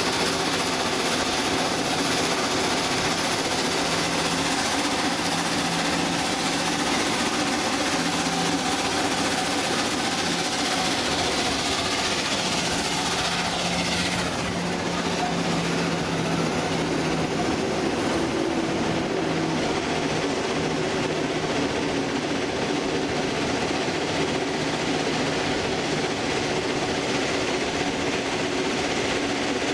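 Train in motion on rails: steady running noise of the locomotive and wheels, with a low engine hum that comes and goes. The sound changes character about halfway through.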